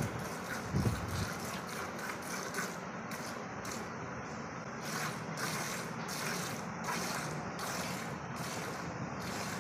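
Cow being milked by hand: squirts of milk hissing into the froth of a partly filled steel bucket in a steady rhythm, about two squirts a second. A dull thump about a second in.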